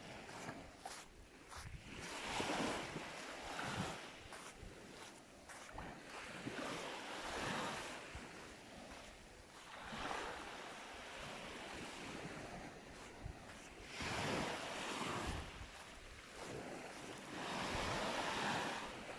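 Sea waves breaking and washing up a sandy beach, each swelling and fading every few seconds, with some wind buffeting the microphone.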